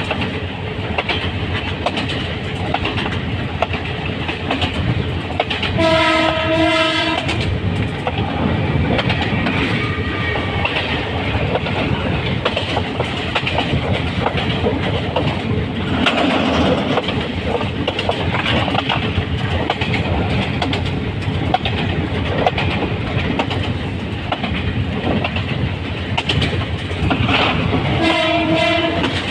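Diesel locomotive under way: a loud, steady rumble of wheels on rail with a clickety-clack of rail joints. Its horn sounds twice, for about a second and a half each time: about six seconds in and again near the end.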